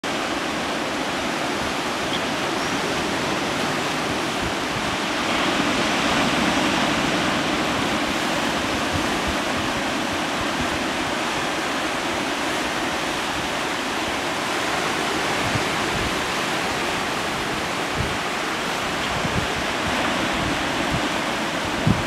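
Surf washing over a rocky shore: a steady rush of water that swells a little about five seconds in, with a few short low bumps near the end.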